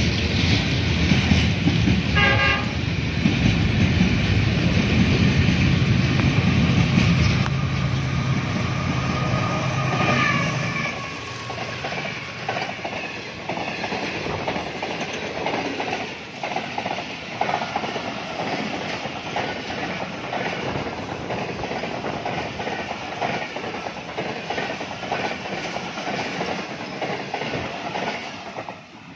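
GEU-40 diesel-electric locomotive passing at high speed: a loud deep engine rumble for the first ten seconds or so, with a short horn note about two seconds in. Then the passenger coaches pass, their wheels clattering quickly over the rail joints, and the sound drops away as the last coach goes by.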